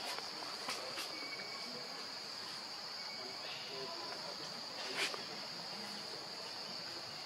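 A steady high-pitched drone of insects in the forest, with a few short sharp taps; the loudest tap comes about five seconds in.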